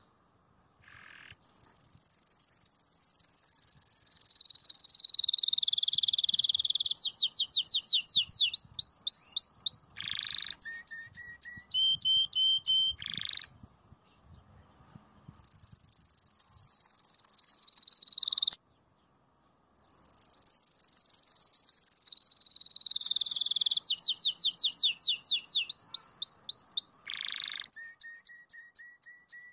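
Domestic canary singing: long rolling trills that slide down in pitch, then fast runs of repeated chirps. The phrases are broken by short pauses.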